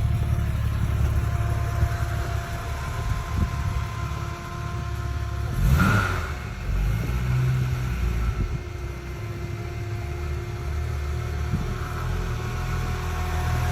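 Aston Martin DB5's four-litre straight-six engine running steadily, with a brief louder burst about six seconds in.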